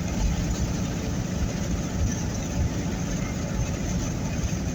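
Steady rumble of a vehicle driving, heard from inside the cabin, with road and engine noise and strong wind buffeting against the vehicle.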